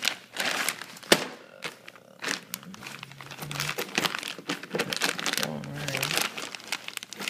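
Plastic parts bag crinkling and rustling as small spare parts are rummaged through. There is one sharp click a little after a second in.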